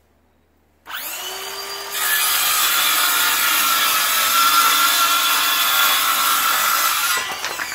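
Ryobi cordless circular saw spinning up about a second in, then ripping through a sheet of OSB for about five seconds; near the end the cut finishes and the blade winds down with a falling whine.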